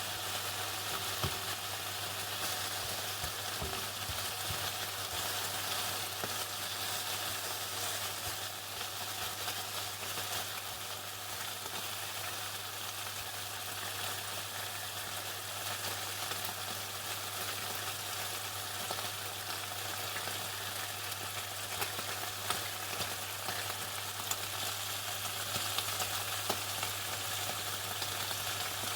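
Chicken frying in hot oil in a commercial fryer: a steady crackling sizzle with small pops scattered through it, over a constant low hum.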